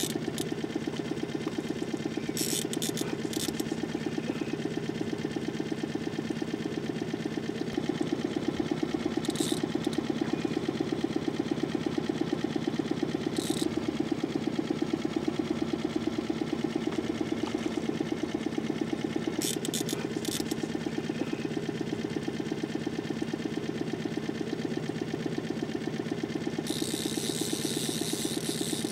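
Small boat outboard motor running steadily at low trolling speed, an even pulsing hum, with a few brief clicks over it.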